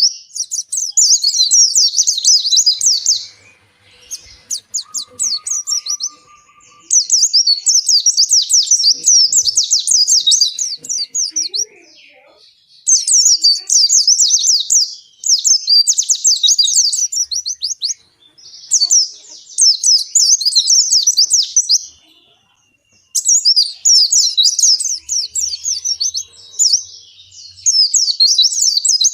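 Pleci (white-eye, Zosterops) singing its long, fast twittering song, high-pitched and packed with rapid notes, in phrases of several seconds broken by short pauses.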